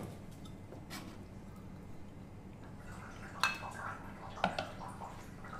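A few light clinks of ceramic cups and a glass coffee pitcher being handled on an espresso bar, the two sharpest about three and a half and four and a half seconds in.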